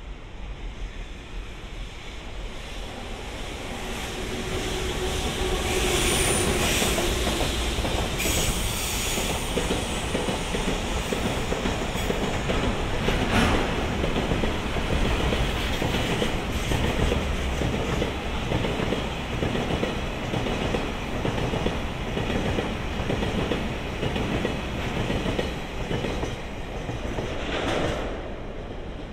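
Freight train passing, its wheels clattering steadily over rail joints. The sound grows louder over the first few seconds and falls away near the end, with a brief high wheel squeal about six seconds in.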